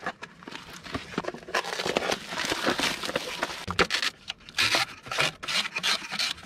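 Paper-and-foil lid of a Nissin cup noodle peeled back and plastic seasoning sachets crinkling as they are pulled out of the cup, an irregular run of rustles and small crackles.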